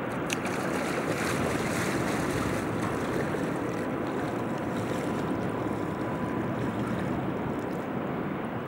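Steady rush and wash of Rhine river water, an even noise without a rhythm, with a faint steady high tone underneath.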